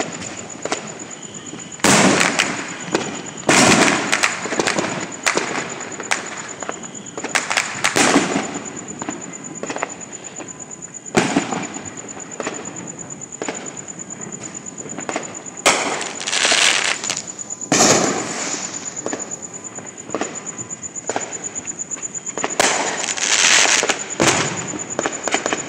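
Fireworks going off: repeated sharp bangs, some in quick clusters that crackle and echo, with gaps of fainter pops between them.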